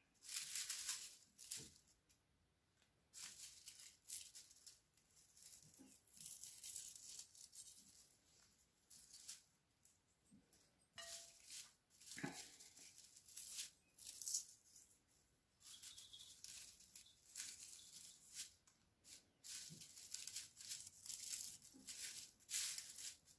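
Dried cilantro leaves crackling and rustling faintly in irregular short bursts as they are stripped from their stems by hand and dropped into a glass dish.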